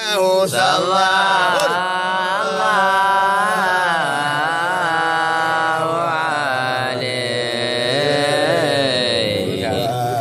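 Men's voices chanting an Arabic devotional hymn in praise of the Prophet, a mawlid chant sung in long notes whose pitch bends and slides.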